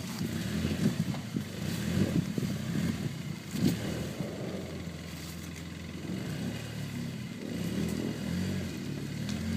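Polaris RZR side-by-side's engine running and revving unevenly as its front wheels push against and climb onto a fallen log. A few sharp knocks come about one, two and three and a half seconds in, and the engine runs steadier in the second half.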